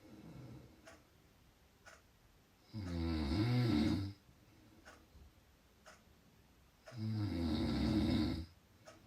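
A person snoring: two loud, rumbling snores about four seconds apart, each lasting about a second and a half.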